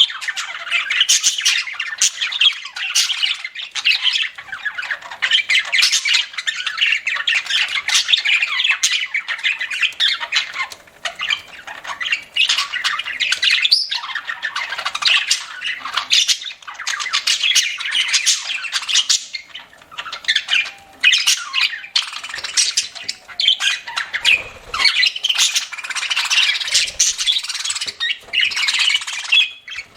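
Budgerigars chattering and squawking continuously, a dense flock-like chatter with many short, sharp calls.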